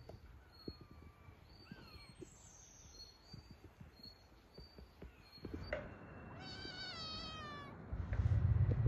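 A domestic cat meowing once, a wavering call lasting about a second. Near the end a loud, steady low hum comes in.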